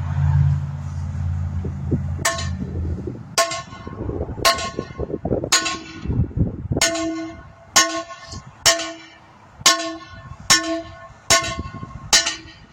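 About eleven heavy hammer blows, roughly one a second, on a bent wheel rim, each strike ringing with a metallic tone, to straighten the bent edge. A steady low hum runs under the first three seconds.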